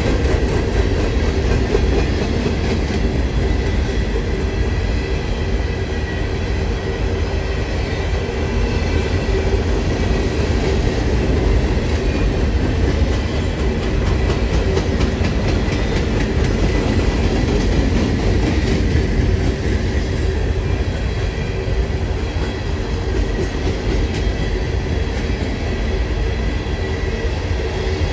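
Norfolk Southern coal train's hopper cars rolling steadily past: a continuous heavy rumble with wheels clicking over the rail joints and a faint high whine from the wheels.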